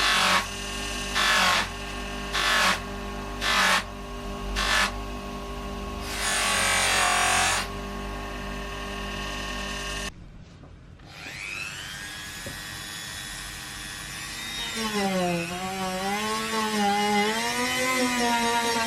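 Electric power tool running with a steady hum, worked against the rusty metal of an oil lantern in scraping strokes about once a second. Near the middle it stops suddenly, then spins up again, its pitch wavering as it is loaded.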